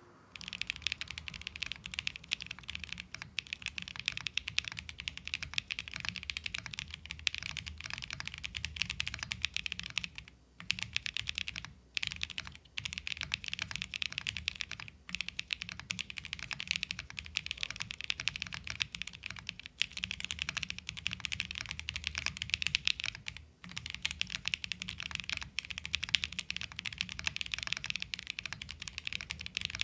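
Continuous fast typing on a Tofu60 2.0 60% mechanical keyboard with lubed Boba U4T 68 g tactile switches and KeyTok PBT dye-sub keycaps: a dense stream of key clacks with a low thock under them. It breaks off briefly about ten and a half seconds in, again near twelve and fifteen seconds, and about twenty-three and a half seconds in.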